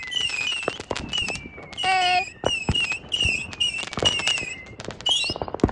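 Consumer fireworks going off: a rapid string of sharp pops and crackles with repeated short falling whistles, a brief held tone about two seconds in, and a single loud bang near the end.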